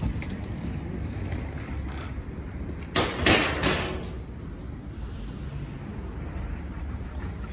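Electric scooter ride over paving: a steady low rumble of small wheels and wind on the microphone, with a louder rush of noise about three seconds in, lasting about a second.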